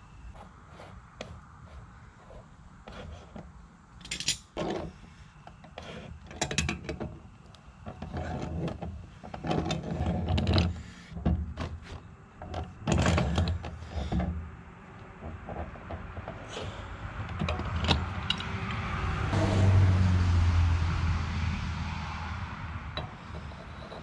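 A wrench turning threaded steel gas pipe fittings at a gas meter outlet: irregular clicks, metallic scrapes and clanks as a fitting is worked loose. In the last few seconds a louder rush of noise with a low hum swells up and fades.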